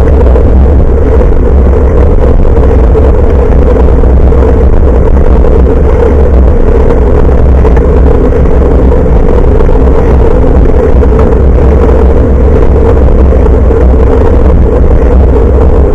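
Wind and road noise on a handlebar-mounted action camera's built-in microphone during a bicycle ride: a loud, steady low rumble with a constant hum over it.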